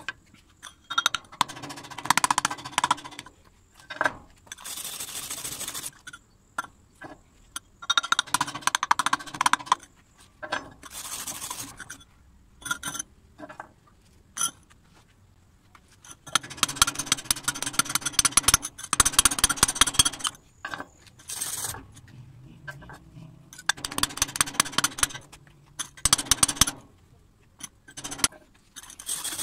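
A chipping hammer knocking and scraping slag off a fresh stick-weld bead on steel, in repeated bursts of rapid metallic taps and scrapes, with short pauses between them.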